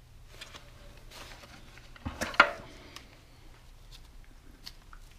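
Steel parts of an E4OD transmission's low-reverse clutch pack clinking as the drum and plates are lifted out of the transmission case: light rustling and handling, then a short clatter and one sharp, ringing metallic clink about two seconds in.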